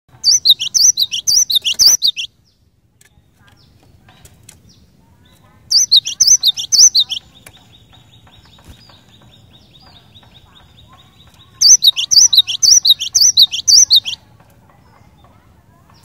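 Cinereous tit (gelatik batu) singing: three runs of rapid, sharp, high repeated notes, each note falling in pitch. A faint, fast trill at one steady pitch runs between the second and third runs.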